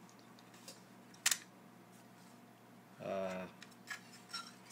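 Light metallic clicks from the aluminium case and wire fittings of an Optimus 99 box stove being handled, with one sharp click about a second in and a few small clicks near the end.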